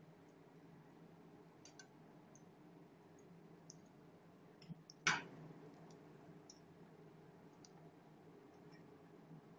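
Gram-flour-battered brinjal (eggplant) slices shallow-frying in hot oil in a wok: a faint sizzle with scattered small crackles, and one louder click about five seconds in.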